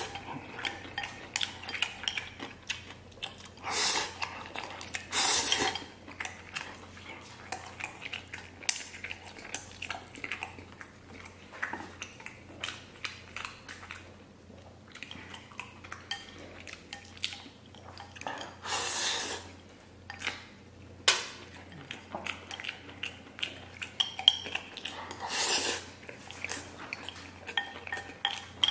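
Close-up eating sounds: chopsticks clicking and scraping against a ceramic bowl and a metal tray, with chewing, and several louder slurps of noodles lasting about a second each.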